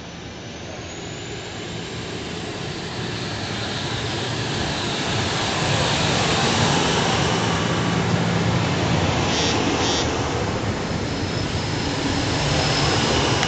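CityRail double-deck electric train running along the platform and past close by, growing louder over the first six seconds and then holding a steady loud rush of wheels and running gear. Two brief high squeals come about two-thirds of the way through.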